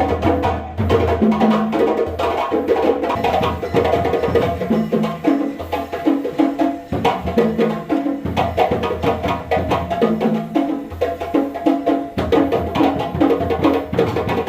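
Music with a steady beat: wood-block-like percussion over a repeating bass line and melody.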